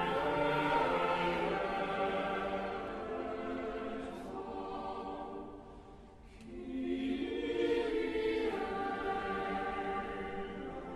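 A choir sings in a large, echoing cathedral. One held phrase fades away about halfway through, and a new phrase swells up a moment later.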